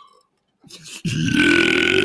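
A man's long, loud burp, starting about a second in and held steady without a break.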